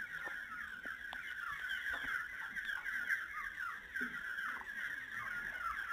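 A large flock of young desi (indigenous) chicken chicks peeping continuously, many short high cheeps overlapping into a steady chatter.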